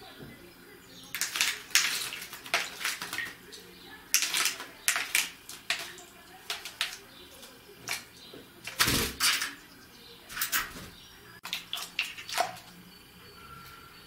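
Eurasian blackbird bathing in a shallow plastic tub of water, splashing and flicking its wings in short bursts every second or so, then falling still near the end.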